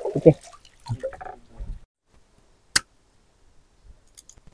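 Water splashing and dripping in the first two seconds, as of cassava being washed by hand, then a single sharp click about halfway through.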